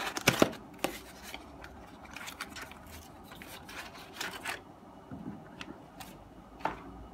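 A small cardboard box being opened and handled: sharp knocks in the first half-second, then cardboard scraping and rubbing for about four seconds, followed by a few light taps as the contents are set down.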